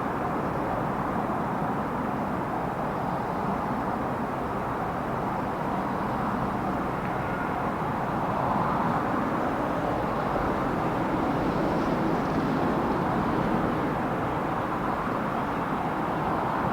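Freight train rolling past on the main line: a steady rumble of wheels on rail that swells a little about eight seconds in.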